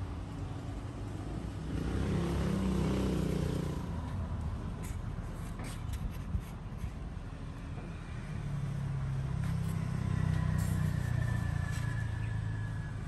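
Road traffic going by: a low rumble swells and fades about two seconds in, and a longer one follows from about eight seconds. A few light clicks fall in between.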